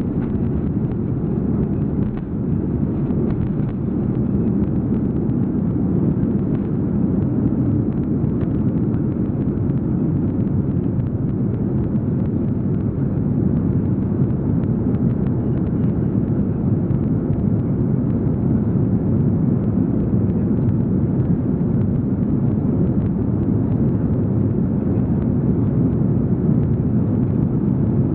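Steady, loud rumble of an Airbus A340-300's four CFM56 engines and rushing air, heard from inside the passenger cabin during takeoff, with a few faint knocks in the first seconds.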